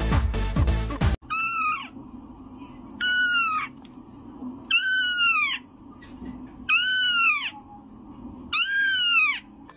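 Kitten meowing five times, about two seconds apart, each short high call rising then falling in pitch. Electronic dance music runs for about the first second and cuts off abruptly before the first meow.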